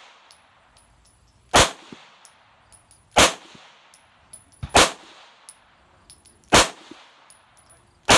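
Semi-automatic pistol with a drum magazine fired as single shots at a slow, steady pace: four sharp shots about a second and a half apart, and a fifth right at the end, each followed by a brief echo.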